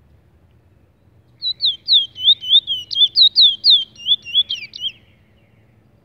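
Caged Trinidad bullfinch singing one phrase: a quick run of high notes, about four a second, each sliding downward, lasting about three and a half seconds.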